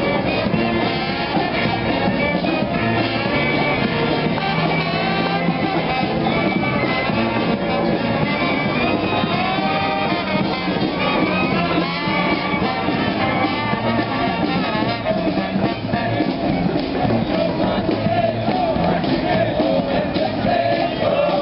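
A street brass band playing, loud and continuous.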